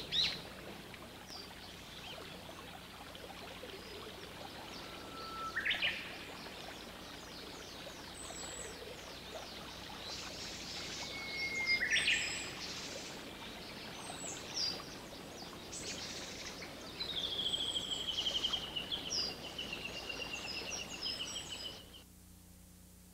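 Wild birds singing over a steady outdoor hiss, with many high chirps. Twice a bird holds a whistle and then leaps up in a quick flourish, and near the end a long, slightly falling trill runs for several seconds. Just before the end the outdoor sound drops away to a much quieter background.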